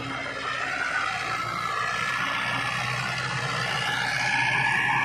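Mahindra 475 tractor's diesel engine running steadily under load while pulling a rotavator through the soil. It grows a little louder about four seconds in as the tractor comes closer.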